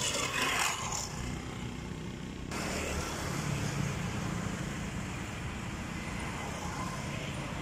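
Steady road-traffic noise: a low rumble under an even hiss, the hiss changing abruptly about two and a half seconds in.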